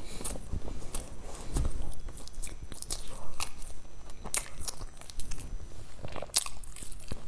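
Close-miked chewing of a crumbly, golden-crusted food, with irregular crisp crunches.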